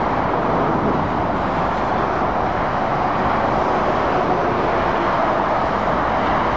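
Steady motorway traffic noise of lorries and cars passing, their tyres and engines blending into one even rush with no distinct events.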